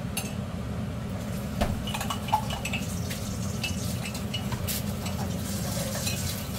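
Large lidded stockpot of chicken and broth boiling on the stove: a steady low rumble of the boil with scattered small pops and ticks, and a couple of light knocks about two seconds in.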